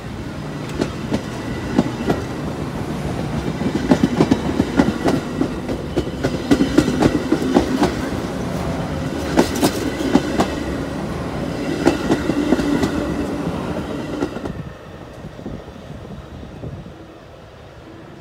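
Metra stainless-steel bilevel commuter coaches rolling past close by: a steady rail rumble with frequent sharp clacks of the wheels over the track. About fourteen seconds in the sound drops to a much quieter rumble.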